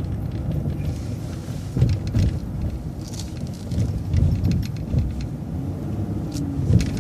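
Transit bus driving, heard from inside: a steady low engine and road rumble with scattered short rattles and knocks.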